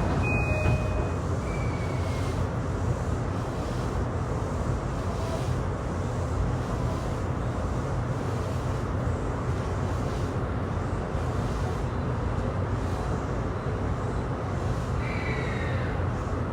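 Running noise inside a JR East E235 series 1000 electric train car in motion: a steady rumble of wheels on rail. A thin high tone ends about a second in, and faint high tones return near the end.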